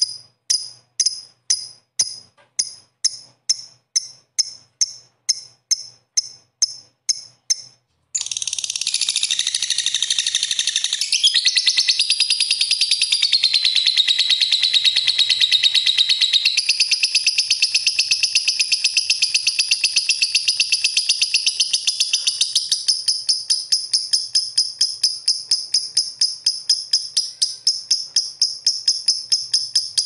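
Lovebird calling: for about the first eight seconds a string of short, high chirps, about two and a half a second (the 'ngetik' call), then one long unbroken rapid rattling chatter, the 'ngekek panjang' song.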